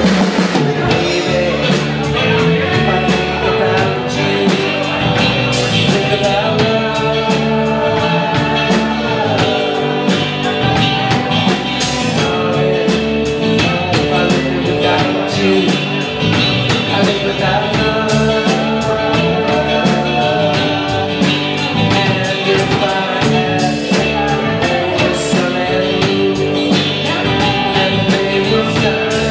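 Live rock band playing: electric and acoustic guitars over a drum kit keeping a steady beat.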